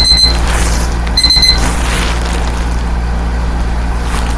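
A high electronic beep that ends just after the start and sounds once more, briefly, about a second in, over a steady low hum.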